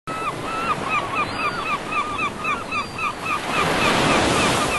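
Surf washing on a beach, swelling louder as a wave comes in about three and a half seconds in, with a bird calling in a rapid series of short chirps, about four a second.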